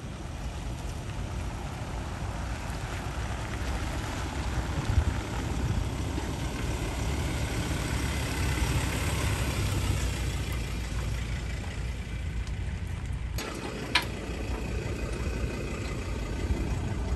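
Tow vehicle's engine running as the car and caravan are manoeuvred at low speed, a steady low rumble with road and wind noise over it. A single sharp click comes about 14 seconds in.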